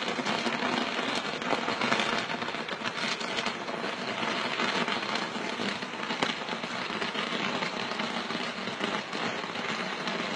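Fireworks crackling densely and steadily: countless small sharp pops running together into a continuous rain-like crackle from a burning ladder-shaped pyrotechnic display.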